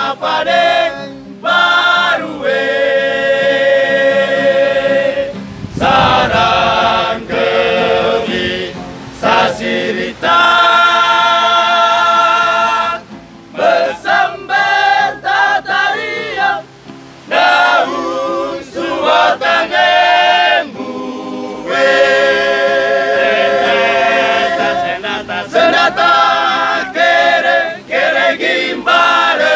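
A group of voices singing together in chorus, with long held notes in phrases and short breaks between them.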